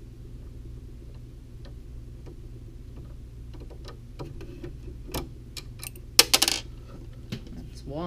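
Small screwdriver working a screw out of a 3D printer's hotend cooling-fan mount: faint ticks, then sharp metallic clicks and a brief rattle about six seconds in.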